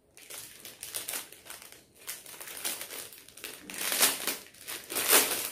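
Packaging crinkling and rustling as it is handled and opened, in irregular crackles that grow louder toward the end.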